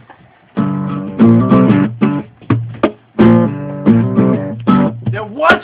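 Acoustic guitar strumming chords, starting about half a second in, in short phrases with brief pauses between them.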